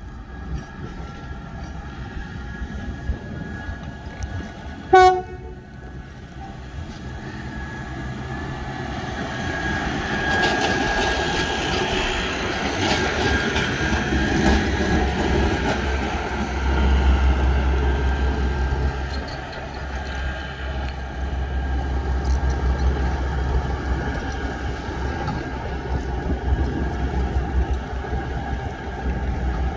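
Diesel-powered rail track machines, a ballast tamper and ballast regulator, running along the line. There is one short horn blast about five seconds in, the loudest sound. The machinery noise then builds as a machine passes close, with clicking from the wheels on the rails and a deep rumble.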